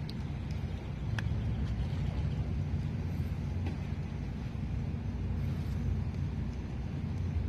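A golf iron striking a ball off turf: one sharp click about a second in, with a few fainter clicks, over a steady low rumble.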